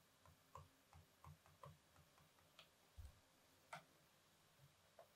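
Near silence with faint, irregular light ticks: a stylus tapping and scratching on a pen tablet while handwriting.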